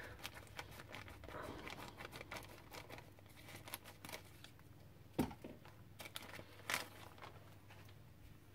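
Faint crinkling of a thin plastic poly bag as scissors cut it open along its side, with small scattered clicks and two sharper snips or clicks about five and six and a half seconds in.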